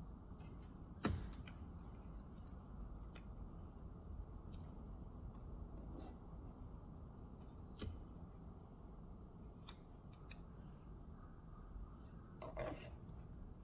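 Scattered light clicks and taps over a low steady hum, the loudest click about a second in and a small cluster of them near the end.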